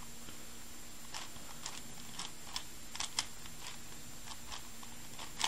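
Plastic clicks and clacks of a 3x3x5 cuboid twisty puzzle as its layers are turned by hand, coming irregularly every fraction of a second, with one louder clack near the end.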